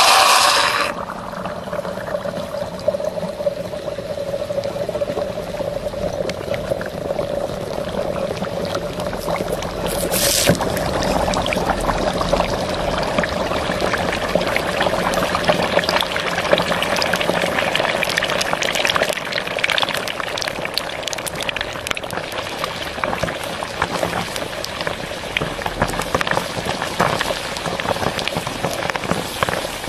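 Popcorn sizzling and crackling under a red-hot metal ball: a steady hiss with many sharp pops and crackles, which come thicker after about ten seconds.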